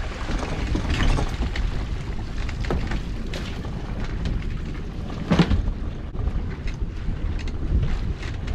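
Wind buffeting the microphone on an open boat, with scattered knocks and clatter of lobster pots being handled at the boat's side and one heavier thud about five seconds in.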